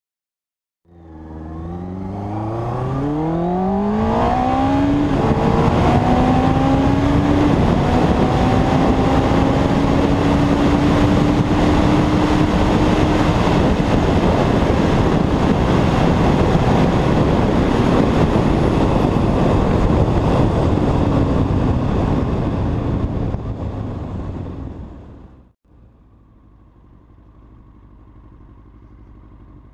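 2001 Yamaha R1's inline-four engine accelerating hard through the gears: its pitch rises steeply in three or four sweeps, each broken by an upshift. It then holds a steady high-revving note at speed under heavy wind noise on the helmet camera. About 25 s in it fades away, and a much quieter steady engine and wind sound follows.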